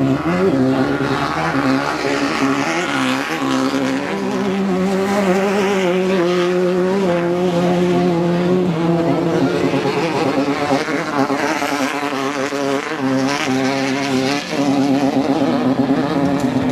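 Off-road race buggy engine running, its revs wavering up and down.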